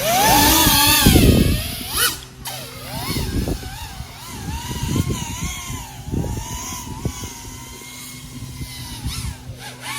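FPV quadcopter's four XING 1504 motors and 3.5-inch props whining, the pitch rising sharply at the start and then wavering up and down as the throttle changes. It is loudest in the first second and a half, with irregular low thumps underneath.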